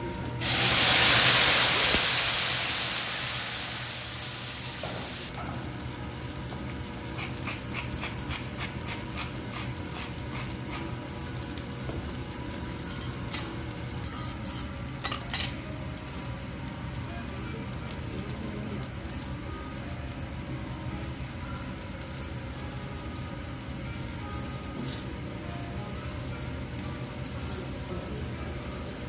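Kuroge Wagyu beef sizzling on a steel teppanyaki griddle. A loud hiss starts about half a second in and dies away over about four seconds. After that the sizzling goes on steadily but quieter, with light metal clicks and taps of the chef's spatula, fork and knife on the steel now and then.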